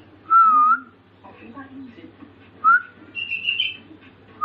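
Sooty-headed bulbul giving three loud clear whistled notes, the first dipping then rising and the later two short upward slurs, with a brief burst of higher chirping between the second and third.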